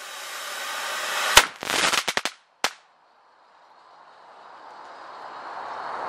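Small taken-apart firework burning with a rising hiss. About a second and a half in comes a sharp bang, then a quick run of crackling pops and a second bang near the three-second mark. After a short gap a steady rushing noise slowly builds.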